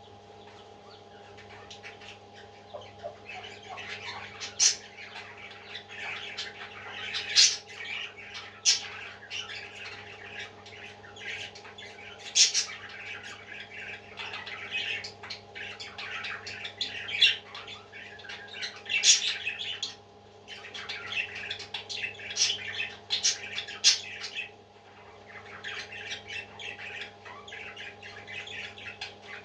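Baby parrots squawking and chirping in repeated bursts of short calls, with brief pauses about twenty and twenty-five seconds in, over a steady low hum.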